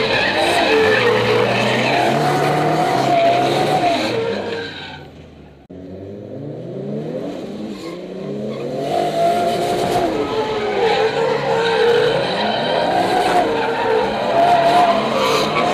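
A Nissan S15 Silvia's swapped-in 2JZ-GTE inline-six, heard from inside the cabin, revving up and down hard through a drift, with tyres squealing and skidding. About five seconds in the engine drops right off, then picks up again a second later and builds back to full revs.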